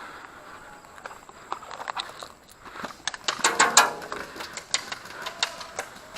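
Footsteps crunching and scuffing on rough ground, with a dense run of clicks and knocks about three to four seconds in.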